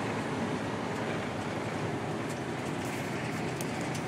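Steady engine and road noise inside the cab of a semi truck driving at highway speed.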